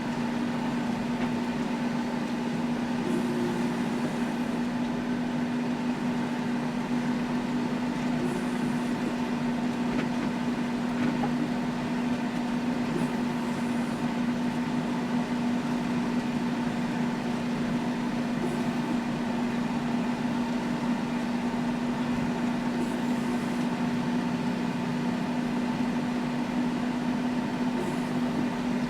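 John Deere tractor driving a power harrow, running steadily under load with a constant low hum.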